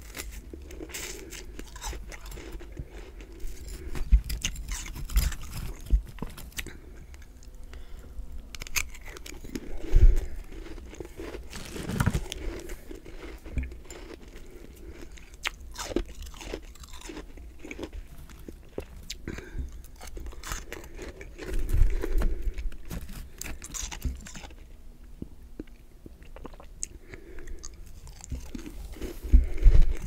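Close-miked crunching and chewing of powdery freezer frost in the mouth, an irregular run of small crackling crunches. Louder crunches come about ten seconds in, around twenty-two seconds and near the end.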